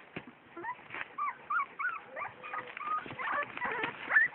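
Young puppies whimpering and squealing in a quick run of short, high, arching whines that start about half a second in, the loudest one rising sharply near the end.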